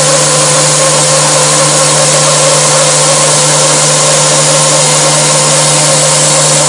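Iscar EFSI-E44 solid-carbide endmill slot milling in a spinning machine spindle: a loud, steady cutting noise with a steady low hum and a couple of steady higher tones, unchanging throughout.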